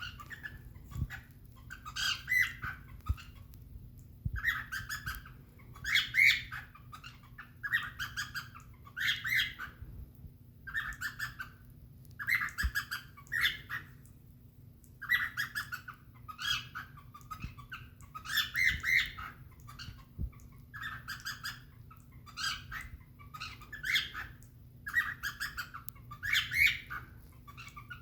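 Cockatiel making happy noises: short, rippling calls repeated about once a second or a little slower, with a brief pause midway.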